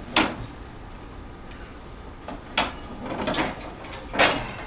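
Three sharp knocks of kitchenware being handled: one just after the start, one about halfway through and one near the end, with quieter clatter between.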